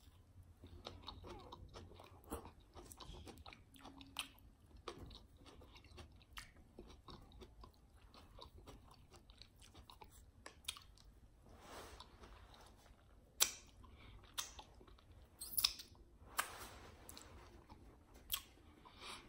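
A person chewing mouthfuls of a spicy Italian sub, with many sharp clicks scattered through, a few louder ones about two-thirds of the way in.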